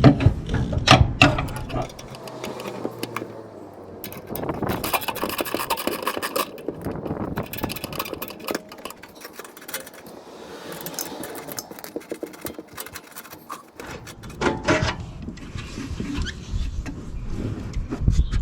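Mechanic's tools at work on a bolt: irregular metallic clicks and clinks of a ratchet and socket, with stretches of scraping and rubbing of metal and plastic parts.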